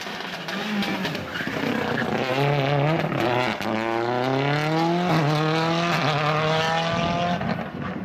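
BMW rally car's engine accelerating hard, its revs climbing through the gears with quick upshifts about three and a half seconds and five seconds in, then holding steady before fading near the end.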